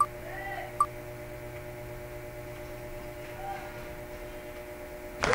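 Wheel of Names spinner's tick sound effect: the last two ticks of the slowing wheel, under a second apart, then a faint steady hum. Near the end the site's applause sound for the chosen winner starts.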